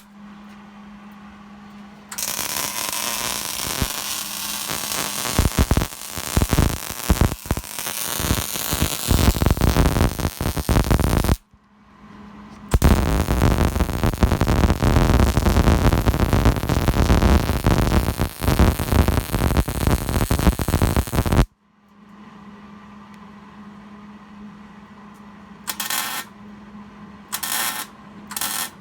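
Electric arc welding: two long beads of dense, spitting crackle about nine seconds each, with a short pause between them. Then a steady electrical hum, broken near the end by three brief bursts of arc crackle as short tack welds are struck.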